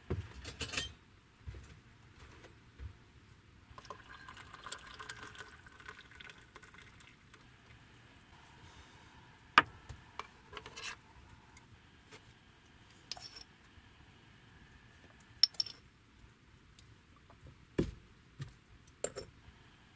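Tea being poured into a ceramic mug for a couple of seconds, about four seconds in, then scattered sharp clinks of a spoon against the mug and dishes.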